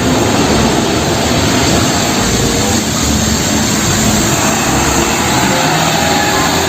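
A heavy vehicle's engine running steadily under a dense rush of noise.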